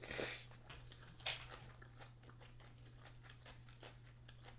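A person slurping thick ramyun noodles, a loud slurp right at the start and a shorter one about a second later, then quiet chewing with small wet clicks.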